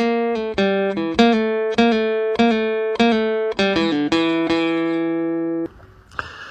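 Background music: a plucked guitar picking a melody one note at a time, ending on a held note shortly before the end.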